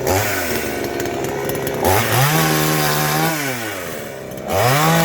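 Two-stroke Patriot chainsaw revved up and held at high speed for about a second, dropping back to a lower running speed, then revved up again near the end.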